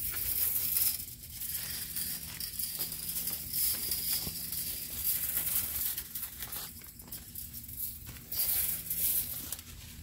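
Irregular rustling and crinkling of pepper plant leaves and handling noise as a person moves along a trellis row from one post to the next.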